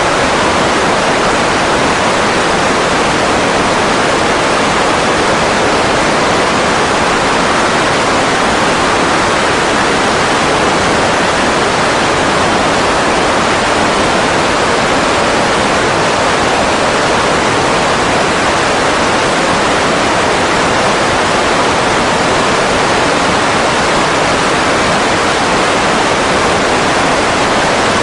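Steady, loud rushing of wind and prop wash over the microphone aboard a Grumman G-164 Ag Cat seaplane, an even roar with no change in pitch or level.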